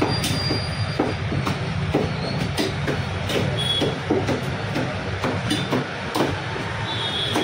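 Butcher's cleaver chopping mutton on a wooden block, sharp knocks about twice a second over a steady low rumble.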